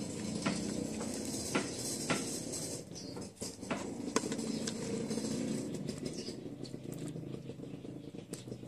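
A metal ladle scraping and clinking in a pot of chicken curry as the curry is ladled into a bowl, with scattered small clicks.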